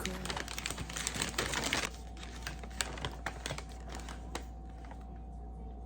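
Typing on a keyboard: quick, irregular key clicks, busier in the first two seconds and sparser after, over a steady low hum.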